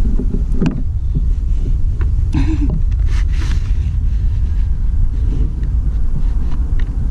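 Steady low rumble of wind on the microphone, with a few brief clicks and rustles of handling, about half a second in and again around two and a half to three seconds in.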